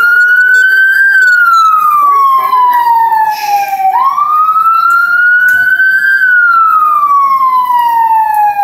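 Fire company emergency vehicle's electronic siren sounding a slow wail: the pitch climbs quickly, then slides slowly down over about three seconds, and the cycle repeats about four seconds in.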